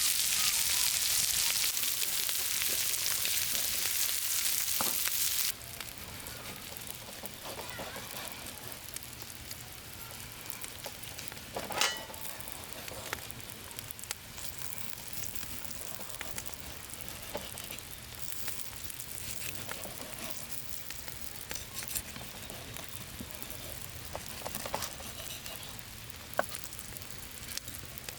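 Food sizzling as it fries on hot metal, a steady hiss that drops suddenly to a quieter level about five seconds in, with scattered sharp clicks and taps over it.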